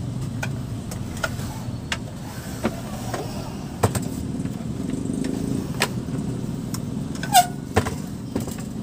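A heavy Kenwood KA-V8500 AV amplifier being turned around by hand on a wooden bench: scattered knocks and scrapes of the chassis, with a short squeak about seven seconds in. A steady low hum or rumble runs underneath.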